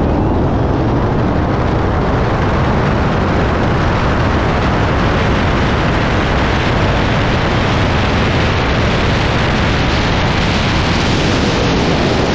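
Loud, steady rush of wind over the microphone of a camera mounted on the outside of a car at full-throttle highway speed, climbing past 100 mph. The hiss grows brighter over the first couple of seconds as the car speeds up, and it buries the engine and exhaust notes.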